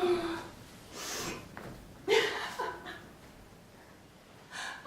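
A woman's short, forceful breaths and snorts, a few of them about a second apart, one with a brief voiced grunt.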